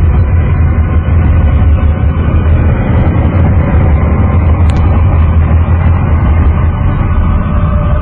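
Space-probe radio emissions from around Uranus's moon Miranda, converted to audio: a loud, steady, wind-like rumbling noise with faint held tones above it. It comes from the solar wind interacting with the magnetosphere around Miranda.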